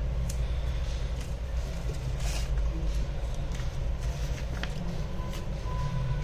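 A steady low background rumble, with a few light clicks and a brief rustle from an iPhone X display assembly being handled and set down on a work mat.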